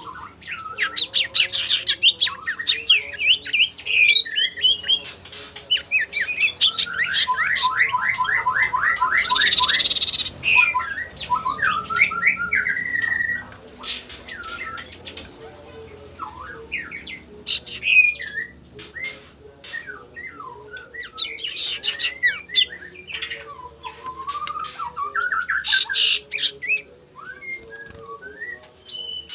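Common iora (cipoh) giving its challenging, territorial call: quick rising whistles and chirps, a fast rattling trill of repeated notes about seven to ten seconds in, then scattered short calls and whistles.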